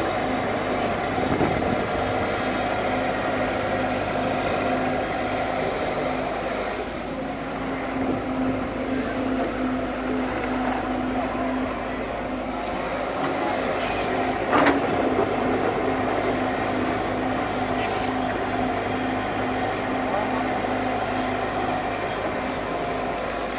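JCB tracked excavator's diesel engine running at a steady working speed while it digs, with a single sharp knock about fourteen seconds in.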